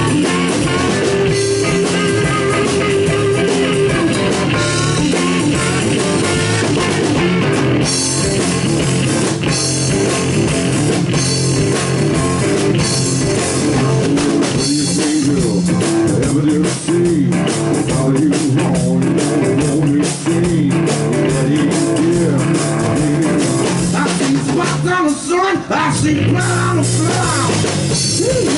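Blues rock band playing live: electric guitar with bending lead lines over bass guitar and a drum kit, loud and full, with a few brief breaks in the second half.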